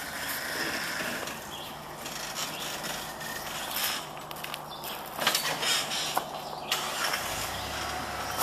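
Off-road 4x4 engine running steadily, with a few sharp knocks a little past the middle and a deeper rumble starting near the end.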